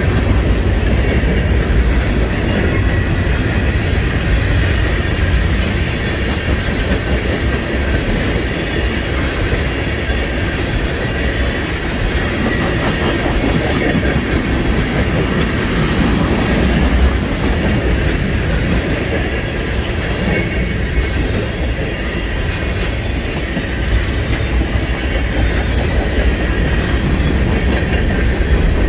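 Freight train rolling past, a loud steady clatter of its cars' wheels on the rails.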